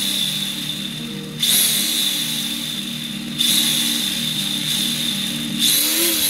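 Electric motor of a hand-held RC pan car spinning its foam-tyred wheels in the air on short throttle blips, about one every two seconds: each a sudden high whirr that fades as the wheels coast down.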